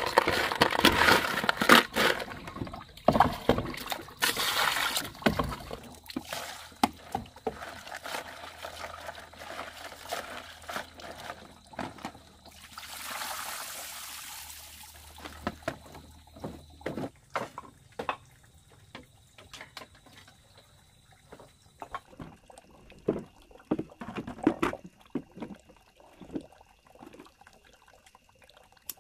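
Water sloshing and splashing, loudest in the first six seconds, then quieter trickling and pouring with scattered small knocks and clicks.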